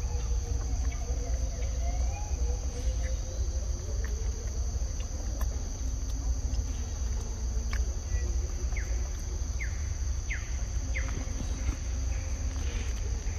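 Insects droning steadily at a high pitch, with a constant low rumble beneath. In the second half comes a run of short falling chirps, about one a second.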